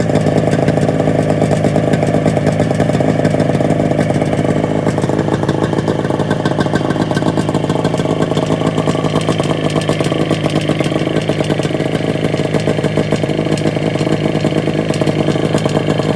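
Kawasaki 340 two-stroke twin engine of a vintage Arctic Cat Puma snowmobile running steadily at an even speed.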